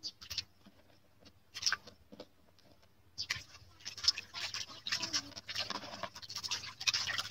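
Hands rubbing and squeezing raw fillets in a metal basin: a few separate scrapes at first, then from about three seconds in a fast, continuous wet scratching and rubbing.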